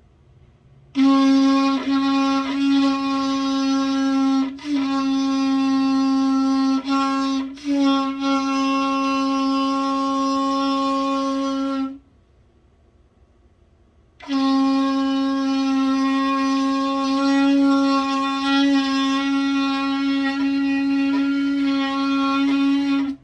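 Shofar blown: a run of notes on one steady pitch separated by several brief breaks, then after a pause of about two seconds one long, unbroken blast at the same pitch.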